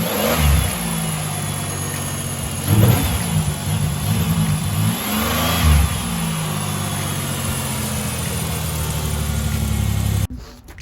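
Chevrolet Monte Carlo engine running with its new spark plugs and plug wires fitted, revved three times and settling back to a steady run between revs. It cuts off suddenly near the end.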